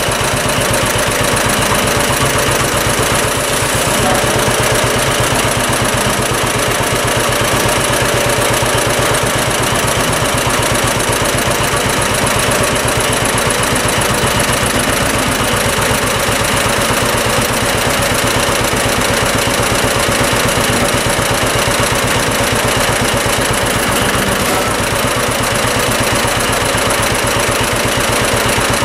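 1949 John Deere BW's two-cylinder engine running steadily with an even popping beat while working the front loader.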